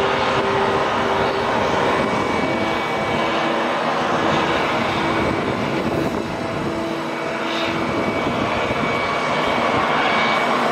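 A CH-53E Super Stallion, a three-engine turbine heavy-lift helicopter, running with its rotor turning: a loud, steady noise with a whine that comes and goes.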